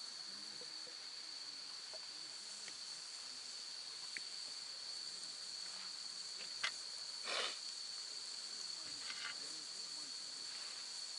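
Crickets trilling in one unbroken high steady tone, with a few faint clicks and a short scuffing noise about seven seconds in.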